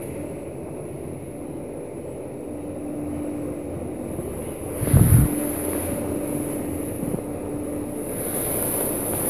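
Schindler machine-room-less traction lift running in its shaft, heard from on top of the car as a steady mechanical hum, with one heavy low thump about five seconds in.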